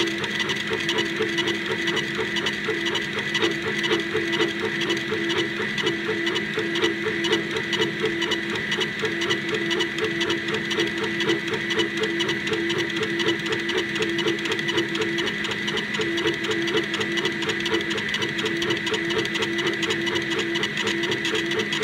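40-watt CO2 laser engraver with a rotary attachment running as it engraves a wooden dowel. Its motors give a steady whine with a fast, even mechanical ticking as the head scans back and forth.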